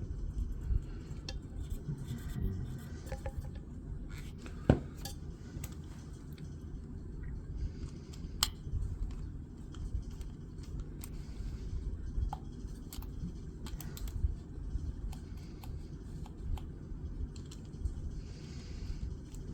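Small metal and glass parts of a flashlight being handled and fitted back together: scattered light clicks and taps, with one sharper click a little under five seconds in, over low handling rumble.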